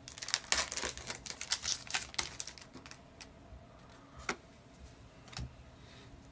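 Pokémon booster pack being opened and its cards handled: a quick run of crackling foil and clicks, then a few single card snaps about a second apart.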